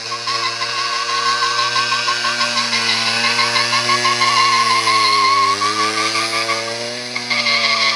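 Small dirt-bike engine held at high revs with a buzzing, wavering pitch that dips around the middle and climbs again as the bike is spun in tight circles on asphalt.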